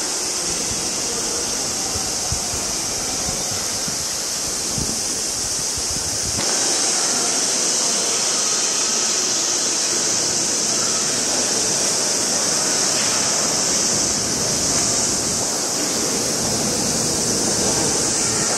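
Steady rushing hiss with no distinct events, heard from behind glass; it steps slightly louder and thinner about six and a half seconds in.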